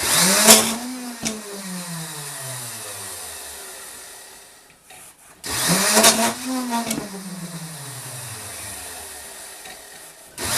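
Small electric drill motor of a hive-frame-bar drilling jig switched on in short bursts. Each time it starts suddenly with a hiss and a couple of clicks, then is cut off and winds down, its whine sliding lower over about four seconds. It starts twice, with a third start near the end.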